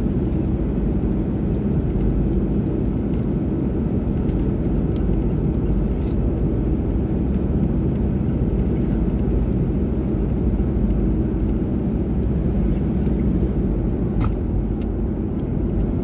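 Steady low rumble of a car driving on a smooth road, heard from inside the cabin, with a couple of faint clicks.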